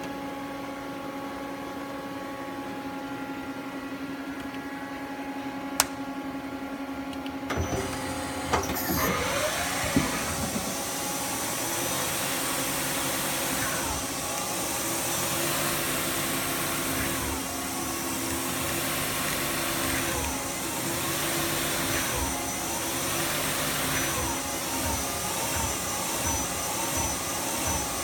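Daewoo Lynx 210A CNC lathe running a program. It starts with a steady hum carrying several fixed tones and one sharp click. About eight seconds in come a few knocks, then the spindle and 6-inch Kitagawa hydraulic chuck spin up into a steady whirring rush, its pitch rising and falling every couple of seconds as the spindle speeds up and slows. It runs smoothly.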